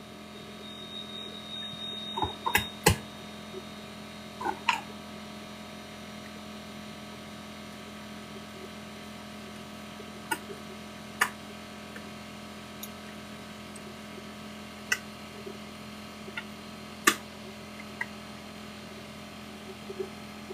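A steady low hum with scattered short clicks and knocks: a cluster of several about two to three seconds in, a pair shortly after, then single ones every few seconds.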